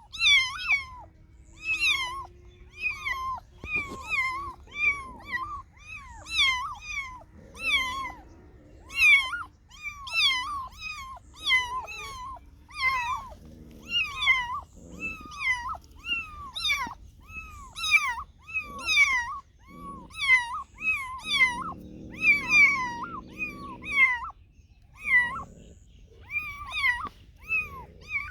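A cat meowing over and over in short, high calls, about one and a half a second, with hardly a pause between them. A lower sound runs for a couple of seconds near the end.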